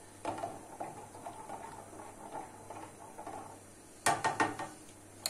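Wooden spoon stirring melted butter in a small metal pan, a soft scraping, then a quick run of four or five sharp knocks of the spoon against the pan about four seconds in.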